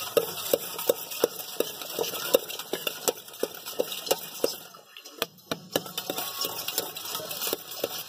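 Cut green guava pieces being tossed with masala in a steel container, knocking against the metal in a steady rhythm of about three strokes a second, each with a short metallic ring. The knocking pauses for about a second a little past halfway, then resumes.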